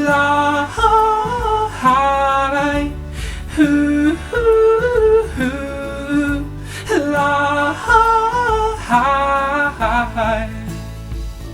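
A man's voice humming a wordless melody in several phrases with held and gliding notes, over instrumental accompaniment: the opening of the song before the lyrics begin.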